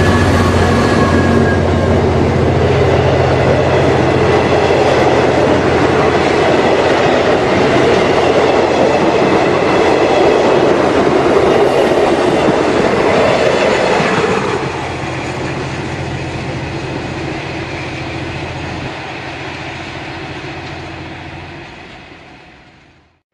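V/Line N-class diesel locomotive and its train of heritage passenger carriages passing close by. The engine's low steady drone runs under loud wheel-on-rail noise with clickety-clack for about fourteen seconds, then the sound drops as the carriages go past and recede, fading out near the end.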